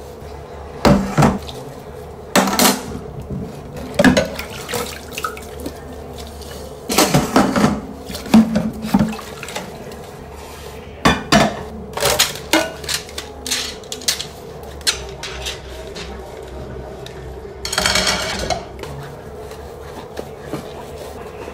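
Ceramic dishes and cutlery clinking and clattering at a kitchen sink as they are scrubbed with a sponge and set down, in irregular knocks with busier spells. A faint steady hum runs underneath.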